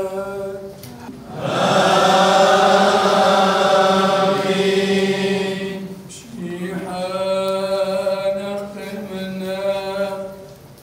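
Chaldean liturgical chant: a single voice holding long chanted notes, then from about a second and a half in a louder, fuller passage of several voices singing together, and from about six seconds in the single held chant again.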